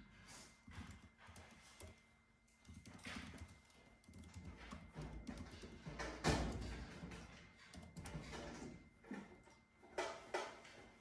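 Faint computer-keyboard typing and small desk knocks at an uneven pace, the loudest knock about six seconds in, over a faint steady high tone.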